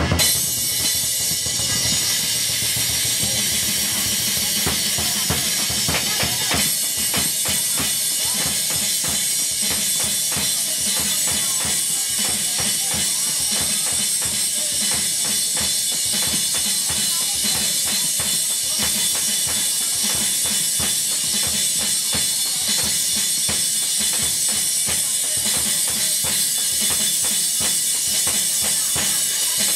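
Lion dance percussion: a large barrel drum beaten in fast, steady strokes, with a constant bright clash of cymbals over it.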